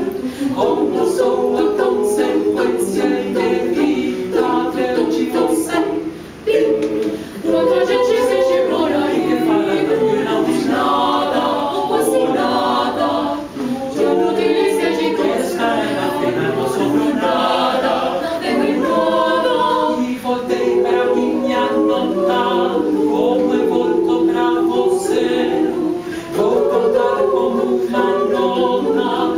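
Mixed choir of men's and women's voices singing a cappella in several parts, with brief breaks between phrases about six and a half and twenty-six seconds in.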